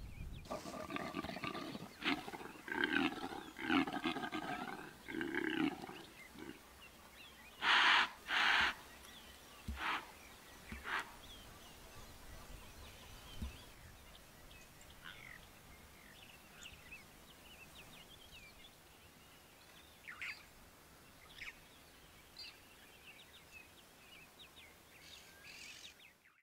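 Impala ram's rutting calls: a run of rapid, deep grunts over the first five seconds, then two loud snorts close together about eight seconds in and a few fainter snorts after.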